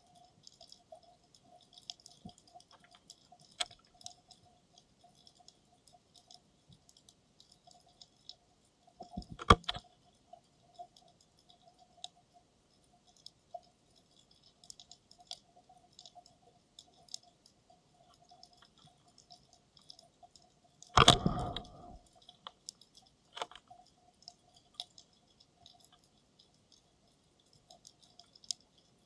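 Underwater sound picked up through a camera's dive housing on the seafloor: sparse, faint crackling clicks of the reef over a faint steady hum, with two louder knocks, one about nine seconds in and a longer one about twenty-one seconds in.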